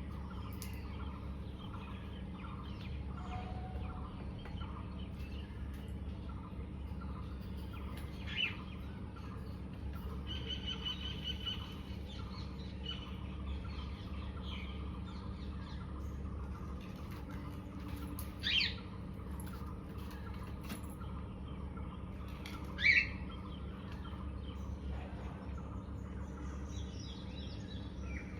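A bird chirping: three short, high chirps several seconds apart, with fainter chirping between them, over a steady low hum.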